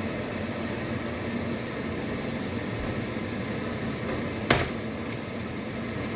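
A steady mechanical hum, with a single sharp click about four and a half seconds in.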